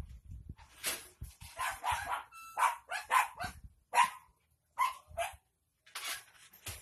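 A dog barking repeatedly off-camera in a string of short, sharp barks, about ten in all, starting about a second in.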